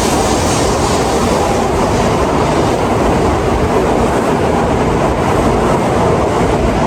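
Shinkansen bullet train pulling out along the platform at speed: a steady, loud rush of noise.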